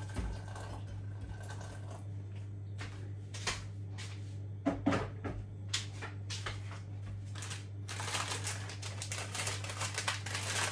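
Scattered light clicks and ticks, then from about eight seconds in a dense crinkling of a plastic instant-noodle packet being handled, over a steady low hum.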